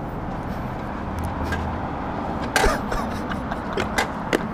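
Sport motorcycle engines idling with a steady low rumble, and a few sharp taps in the second half.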